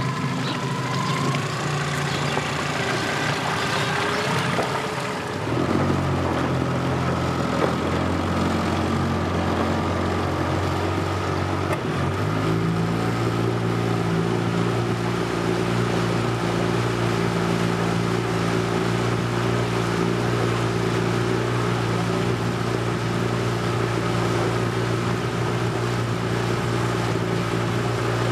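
Tiller outboard motor on a small aluminium fishing boat running under way, a steady engine drone. About twelve seconds in the sound changes abruptly to a deeper, even hum that holds steady.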